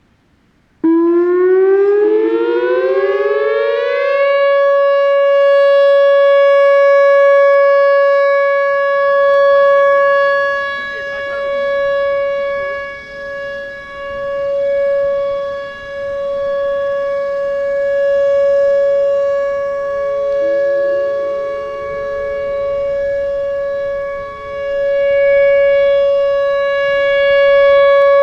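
Whelen Vortex outdoor warning siren sounding its steady Alert signal for a test. About a second in it winds up from silence, the pitch rising for about three seconds, then it holds one steady tone that swells and fades in loudness every few seconds.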